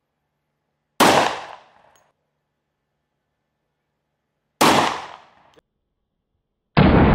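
Two shots from an IMI Desert Eagle pistol in .357 Magnum, about three and a half seconds apart, each a sharp crack dying away within a second. Near the end a third, longer and duller boom begins.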